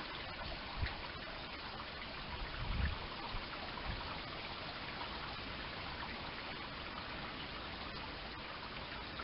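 Heavy rain shower falling steadily on rooftops and a wet street. A few brief low bumps come through the rain, the loudest about three seconds in.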